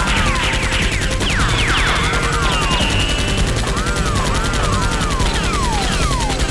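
Movie-style automatic gunfire sound effects dubbed over a Nerf blaster fight: a rapid, continuous rattle of shots with repeated falling whistles over it.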